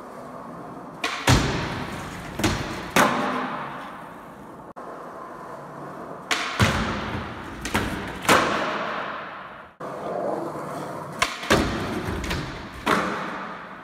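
Skateboards on a concrete floor: wheels rolling, with sharp clacks of nollie pops, the board striking and sliding on a wooden box, and landings. The clacks come in three runs of about three each, and each rings on briefly in an echoing hall.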